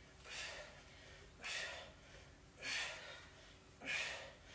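A man's forceful breaths out through the mouth, one with each twist of a seated oblique exercise with a dumbbell: four short, sharp exhalations about a second apart.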